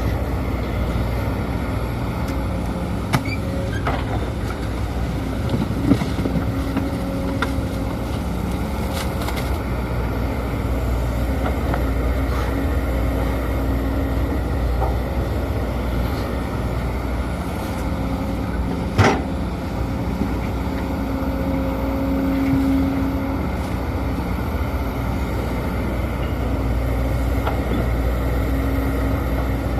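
Sumitomo SH210 hydraulic excavator running steadily as it works, its diesel engine and hydraulics humming with a tone that swells and fades, with a few sharp clacks, the loudest about two-thirds of the way through.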